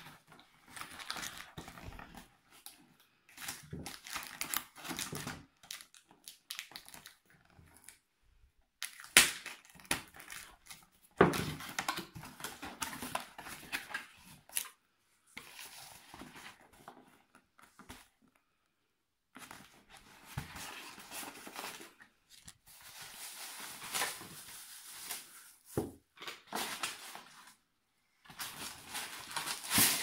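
Cardboard box being opened and unpacked by hand: flaps and packaging rustling, scraping and crinkling in spells with short pauses, with a few sharp knocks about nine and eleven seconds in.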